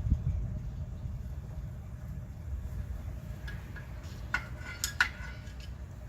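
A few sharp metallic clinks with a short ring, tools knocking against steel brake parts, about four to five seconds in, over a low rumble.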